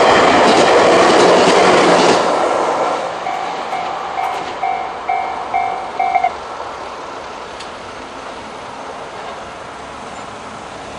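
Train passing over a level crossing, its rail noise loud for the first two seconds or so and then fading. The crossing's electronic warning alarm, the JR standard tone, sounds in even two-note pulses about two and a half times a second and cuts off suddenly about six seconds in.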